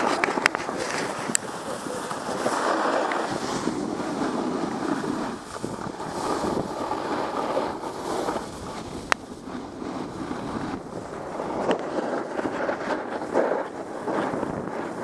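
Wind rushing over the microphone of a camera carried by a skier going downhill, mixed with skis sliding on packed snow. A sharp click about nine seconds in.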